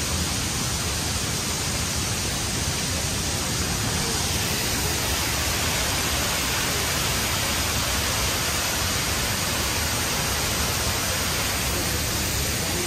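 Waterfall and river rushing: a steady, even noise that does not break.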